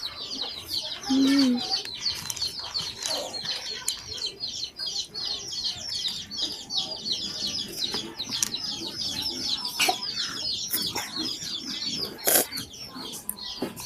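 Many birds chirping, a dense run of quick, high, falling calls, with a short louder call about a second in and a sharp knock near the end.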